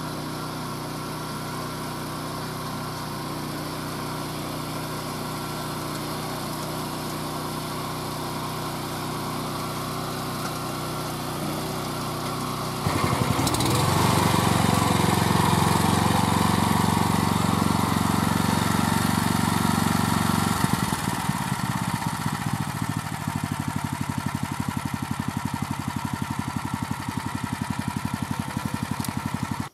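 Honda GX340 single-cylinder engine of a Grillo G107D walk-behind tractor running a 27-inch rotary tiller. It runs steadily at first, then becomes suddenly much louder and closer about 13 seconds in. Around 21 seconds it settles to a quieter, evenly pulsing run, and the sound cuts off suddenly at the end.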